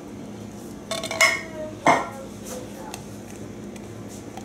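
Empty tin can knocking against the rim of a ceramic slow cooker insert, two clinks with a short ring about one and two seconds in, as the last drained black beans are shaken out, with a few lighter taps after.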